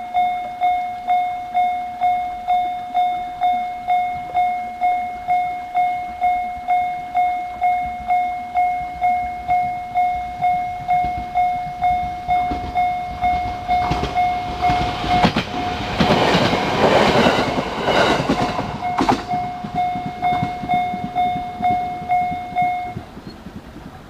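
Japanese railway level-crossing alarm sounding its unusual 'pen-pen' tone, about two rings a second, each ringing out. A train passes through the crossing from about 13 to 20 seconds in, loudest around 16–18 seconds, and the alarm stops shortly before the end.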